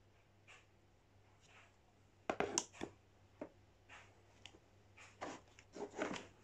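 Hands handling a plastic storage box: a few knocks, clicks and rubs as a sealant-coated padding strip is pressed into place inside it. The loudest knocks come about two seconds in, with more near the end.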